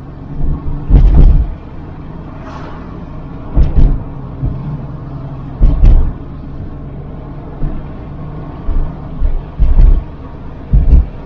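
A car driving, with a steady low road rumble broken by loud, short low thumps every second or two.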